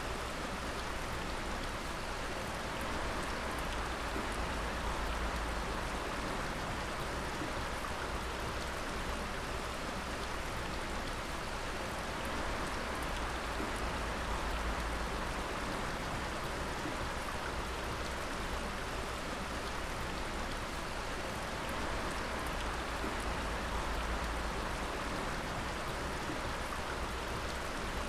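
Water dripping steadily, many drops pattering together in a continuous, even patter like rain.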